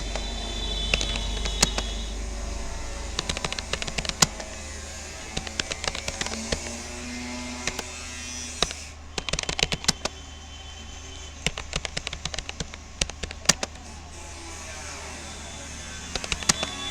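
Typing on a Rapoo computer keyboard: irregular runs of quick key clicks, broken by short pauses, with a few louder single strokes.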